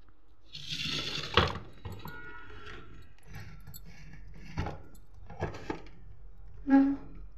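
Plastic clicks and knocks as a mixer grinder's jar and lid are handled and fitted onto the base, with a short rustle about a second in and a brief pitched squeak near the end; the motor is not running.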